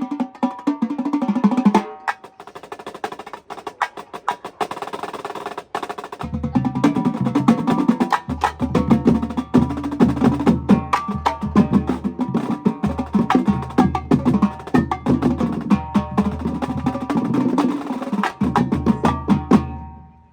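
Marching drumline playing a cadence: snare and tenor drums in dense rapid strokes, a lighter passage early on, then the full line with bass drums joining about six seconds in. It stops abruptly at the end of the piece.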